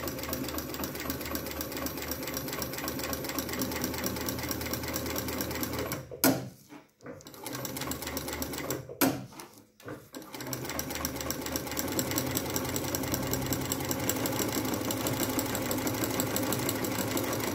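Dürkopp Adler 272 industrial lockstitch sewing machine stitching through a 3–4 mm thick leather belt: a fast, steady stitching rattle. It stops briefly twice, a little after six seconds and again at about nine seconds, each stop with a sharp click, then runs on.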